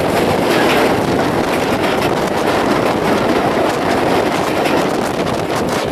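An oncoming diesel locomotive and its passenger carriages pass close by at speed on the next track, making a loud, steady rush and rumble, with wind buffeting the microphone. A few sharp clicks of wheels over rail joints come through, mostly near the end.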